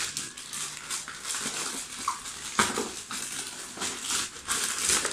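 Plastic courier pouch crinkling and rustling as it is torn open by hand, with sharper rips about two and a half seconds in and again near the end.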